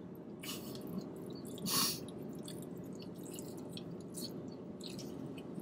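Close-up eating sounds: people chewing and slurping noodles, with small wet mouth smacks and clicks and one louder mouth noise a little under two seconds in, over a steady low hum.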